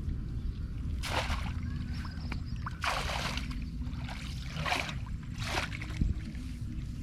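Water splashing and sloshing in four short bursts over a steady low rumble.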